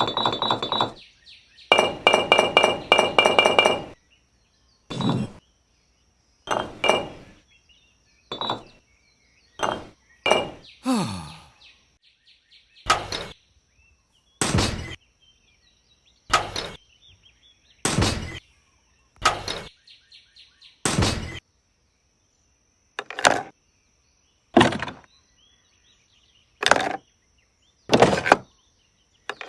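Short, sharp clinks and knocks of hard small objects, one every one to two seconds, after a quick run of rapid clinking about two seconds in.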